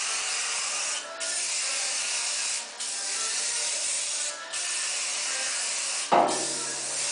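Aerosol can of truck bed liner spraying in long hissing passes, with three short breaks where the nozzle is let go. About six seconds in, a louder low steady hum joins the hiss.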